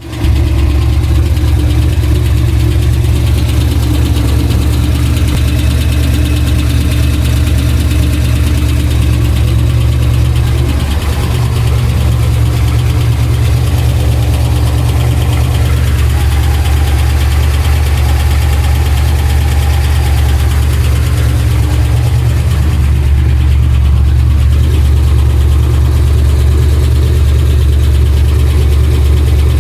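Pontiac Trans Am engine idling with an odd ticking that has turned into a deeper knock heard all around the engine. The owner fears a major internal part, perhaps the crankshaft, rather than the exhaust or a lifter.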